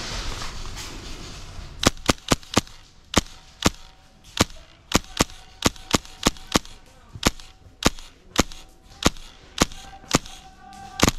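Airsoft rifle firing single shots in a long uneven string of about twenty sharp cracks, roughly two a second, starting about two seconds in.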